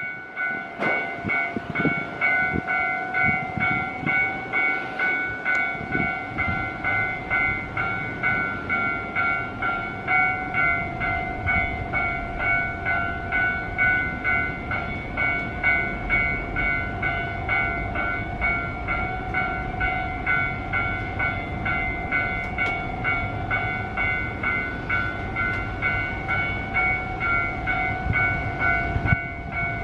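Japanese railway level-crossing warning bell ringing steadily, a repeated electronic ding about twice a second, with strong wind buffeting the microphone underneath.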